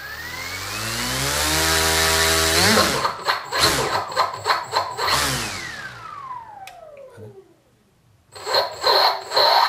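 Turnigy Multistar 4220-650KV brushless outrunner motor driving a propeller: its electric whine rises steadily as it spins up, turns rough and stuttering at about three seconds, then falls away as it winds down. After a short pause, about eight seconds in, it starts again with uneven, jerky pulses, the stutter typical of a brushless motor losing sync with its ESC.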